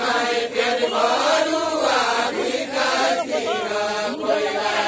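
A group of men singing a deuda, the far-western Nepali folk song, many voices together in a slow, chant-like melody.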